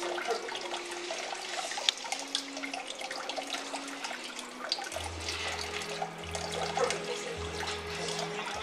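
Soft background music of slow held notes, with low bass notes coming in about five seconds in, over a steady rushing, trickling noise.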